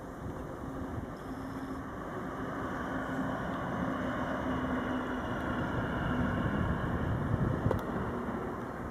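BR 203 diesel-hydraulic locomotive passing by, its diesel engine giving a steady low hum that grows louder as it approaches, peaks about seven seconds in, then eases off. A sharp click near the end.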